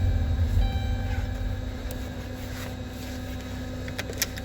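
Low, steady rumble of a car's cabin with the engine running, easing off about two seconds in, and a couple of light clicks near the end.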